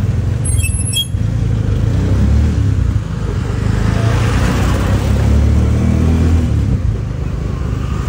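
Road traffic: motor vehicle engines running close by, with a heavy low rumble and a faint rise and fall in engine pitch.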